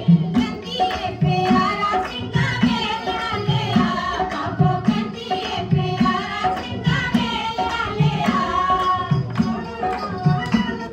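A song with a singing voice over a steady hand-drum beat, about one stroke every second.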